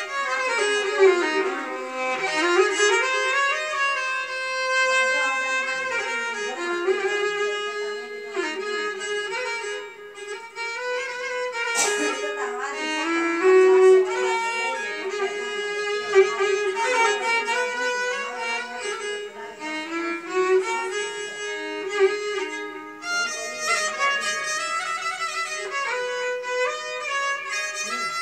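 Solo violin bowing a continuous melody with many sliding notes. A single sharp click about twelve seconds in.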